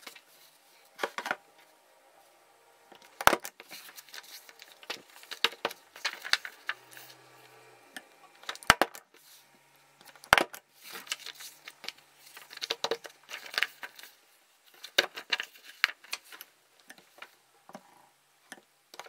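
Long-reach stapler clacking as it is pressed down on a folded paper zine, with sharp clacks about three seconds in and again around nine and ten seconds. Between the presses, paper pages rustle and slide as they are repositioned. The stapler keeps stapling badly, and its user can't work out why.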